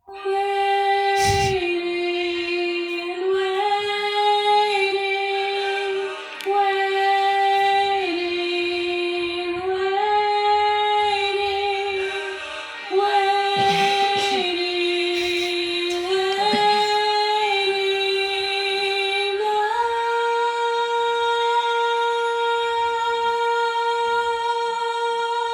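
A female voice singing a wordless, unaccompanied melody of slow held notes. It ends on one long higher note, held for about the last five seconds.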